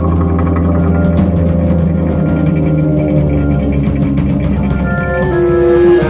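Instrumental jazz-rock band playing live: drum kit with cymbals over an electric bass holding a low note, and a higher melody stepping through several notes near the end.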